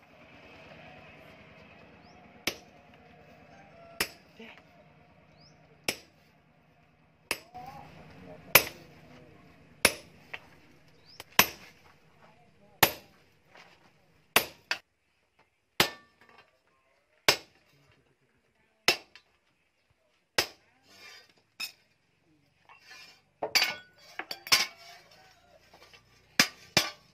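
Hand hammer striking a steel chainsaw bar laid on a steel post anvil: single metallic blows about every one and a half seconds, each with a short ring, coming faster near the end.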